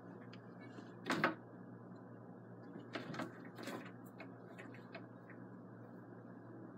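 A few knocks and clicks over a steady low hum: one sharp knock about a second in, then a cluster of knocks and clicks between about three and four seconds.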